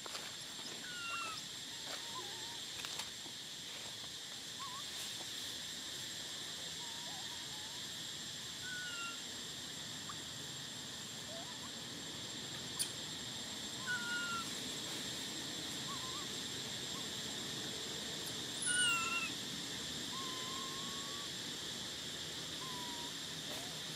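Outdoor natural ambience: a steady high drone with short, high chirping animal calls scattered through it, most of them falling slightly in pitch. A louder call comes about three-quarters of the way through.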